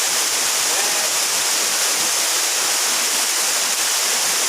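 Steady rush of a waterfall: even, continuous water noise.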